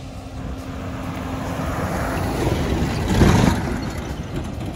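Vehicle road noise while driving, swelling to its loudest about three seconds in and then falling back.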